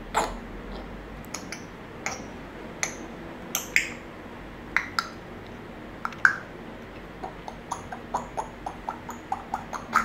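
African grey parrot making a string of sharp clicks and short whistled pops, spaced out at first and then coming quicker, about four or five a second, over the last three seconds.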